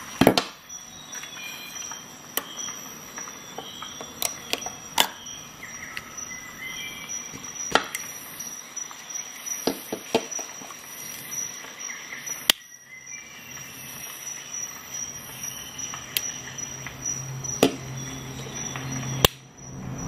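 Victorinox Rescue Tool being handled, its steel blades and tools clicking as they are folded and worked, with about ten sharp clicks at irregular intervals.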